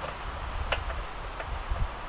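A few scattered sharp metallic clicks of hand tools on a motorcycle's front wheel assembly, over a low rumble of wind on the microphone.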